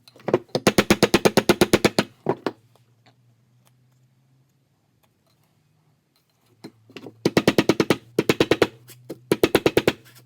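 Electronic music in bursts of fast pulsing chords, about eight a second, stopping for a few seconds in the middle and starting again about seven seconds in.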